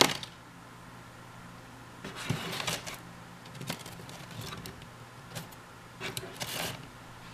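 Two-month-old doughnuts handled in a cardboard doughnut box: a sharp knock right at the start, then a few short rustles and scrapes as they are picked up, turned over and set back down, over a low steady hum.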